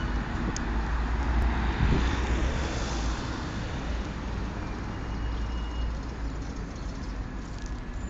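City road traffic: a car passes close by in the first few seconds over a steady low rumble of engines, which eases off slightly after that.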